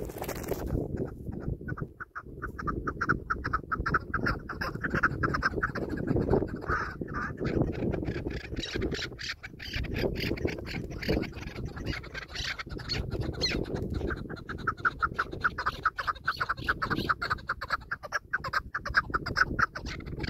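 Chukar partridges calling: long runs of rapid, repeated clucking notes in two spells, over a steady low rumble.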